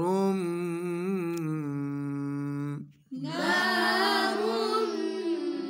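Quran recitation chanted in the drawn-out tajweed style, unaccompanied. A voice holds a long wavering note that stops about three seconds in, and after a brief gap a voice comes in again with another long held note.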